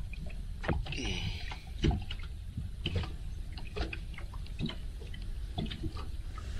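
Small waves slapping and lapping against the boat hull in irregular knocks and splashes, over a steady low rumble.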